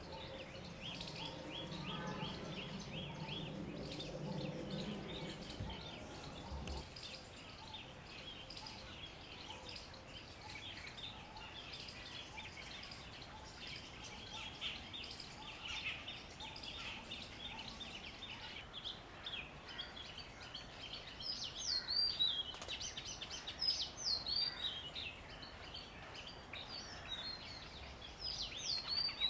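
Small birds chirping in quick, repeated high notes, with louder, sharper calls in the last third. A low rumble runs underneath and stops about seven seconds in.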